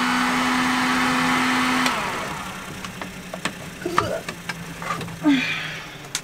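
Electric heat gun running with a steady fan hum, switched off about two seconds in and winding down. Then scattered clicks and knocks as a rubber hose is worked onto the shower drain fitting.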